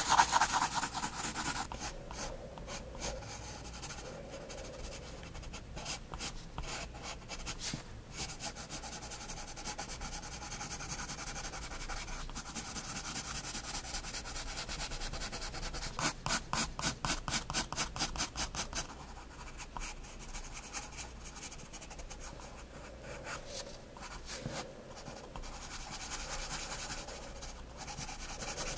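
9B graphite pencil scratching and rubbing on sketchbook paper as it shades, in runs of quick back-and-forth strokes. The loudest strokes come in the first second, and a fast run of about five strokes a second comes about two-thirds of the way through.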